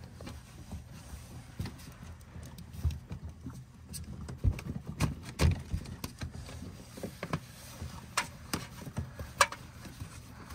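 Plastic drain fittings knocking and clicking as a removable P-trap is pushed into place and its slip joint handled: irregular taps and dull thumps, with a few sharper clicks near the end.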